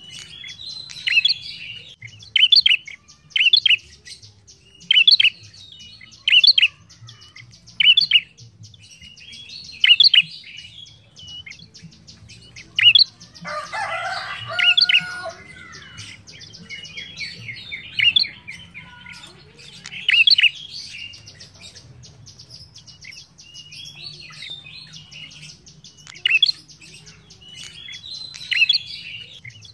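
A prenjak songbird calling: sharp high chirps repeated about every second and a half, with a denser, lower burst of notes in the middle.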